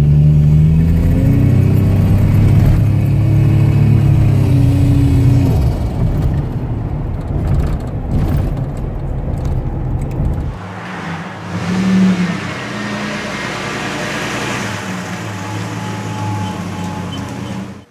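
Pickup truck engine and road noise heard from inside the cab, the engine note rising steadily as the truck accelerates over the first few seconds. About ten seconds in it changes abruptly to a lighter, steadier sound with less low rumble.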